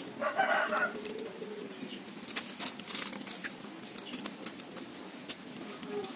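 Irregular small metallic clicks and clinks as the end bracket and brush holders of a Philips HR 2223 blender motor are handled and fitted onto the rewound stator.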